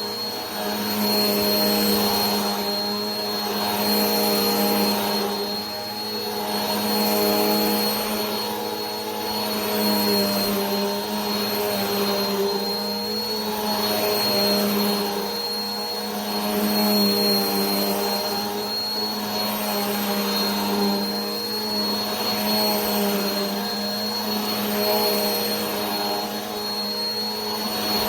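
Vacuum cleaner motor running steadily, a hum with a thin high whine. Its loudness swells and falls about every two seconds.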